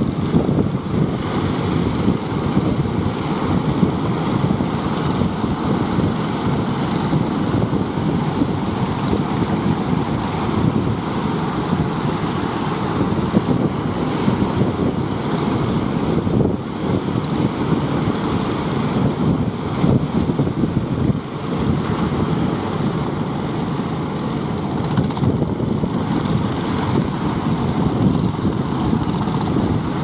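Large waves breaking and rolling in, with strong sea wind blowing on the microphone: a loud, steady wash of noise.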